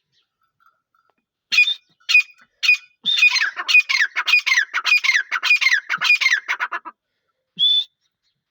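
Black francolin calling. It gives three separate harsh notes, then a quick run of about nine notes, each falling in pitch, and one more note near the end.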